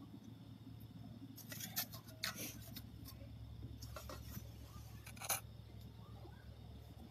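Wood fire in a biomass wood-gas cook stove crackling: two short runs of sharp pops, the first about a second and a half in and the second about four seconds in, over a faint steady low hum.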